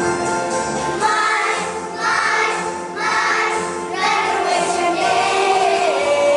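A group of young children singing a song together over backing music, in short phrases about a second apart, ending on a long note that slides down.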